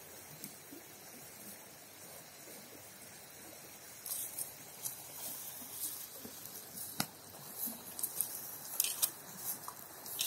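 A cow grazing close by: irregular crisp tearing and crunching as it crops grass, starting about four seconds in, over the steady rush of a river.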